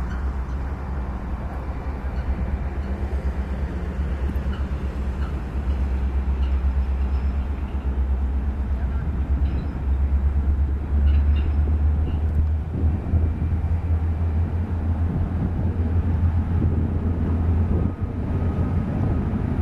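Union Pacific freight approaching behind EMD SD70AH and SD70M diesel locomotives: a steady low rumble from the engines, a little louder from about halfway through.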